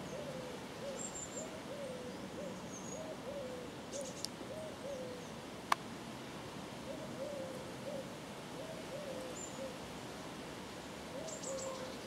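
A bird giving short, low hooting calls, about two a second, in a run that stops about five seconds in and starts again a couple of seconds later. Faint high chirps from small birds and two sharp ticks sit over a steady background hiss.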